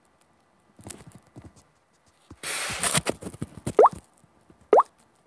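A phone being handled, with knocks, clicks and a brief rustle. Then come three short, rising plop-like tones about a second apart, the loudest sounds here.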